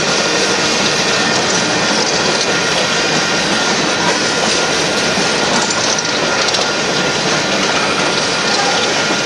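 Coal train's steel cars rolling past on the rails: a steady, loud rumble and clatter of wheels on track.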